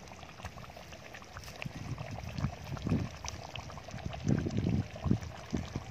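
A ladle scooping thick crab curry out of a metal pot and pouring it onto a paper plate. A few irregular low, dull thumps come in the second half.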